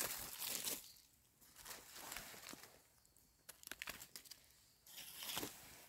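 Dry leaf litter rustling and crackling as a hand brushes dead leaves aside, in a few short bursts with small clicks between them.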